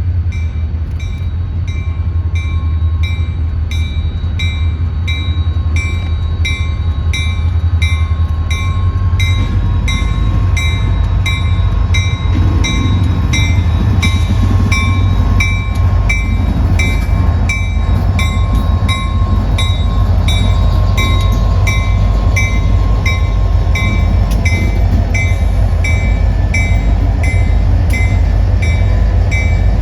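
A train passing, with a steady low rumble that grows louder about ten seconds in. A high ringing repeats evenly about twice a second throughout.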